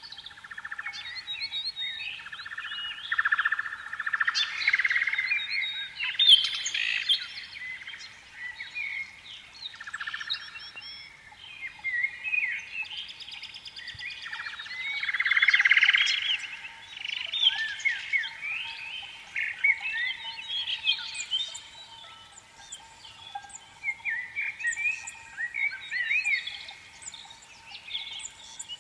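Many birds chirping and singing at once, short overlapping chirps and trills with no pause.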